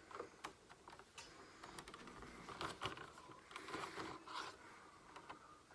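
Faint rustling and small clicks of packaging being handled as a boxed statue is unpacked, busiest about halfway through.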